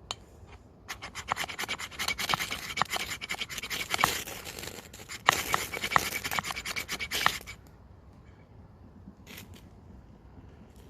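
Quick, repeated hard scraping strokes of fire lighting, a striker or blade scraped over and over, running for about six seconds and then stopping.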